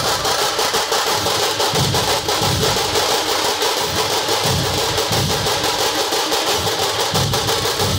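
Dhol-tasha ensemble drumming: tasha drums played with sticks in a rapid, dense roll over deep beats of the large barrel dhols, the heavy beats coming about once a second.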